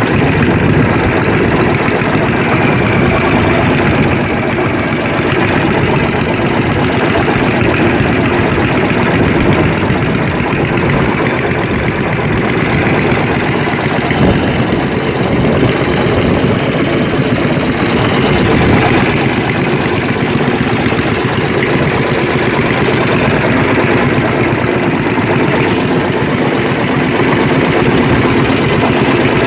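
Small fishing boat's engine running steadily at an even pace, with no change in speed.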